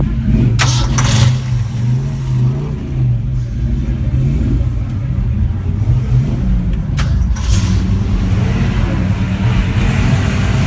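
A car engine running loudly and being revved, its low rumble rising and falling in pitch. Two short bursts of hiss cut in, about a second in and again about seven seconds in.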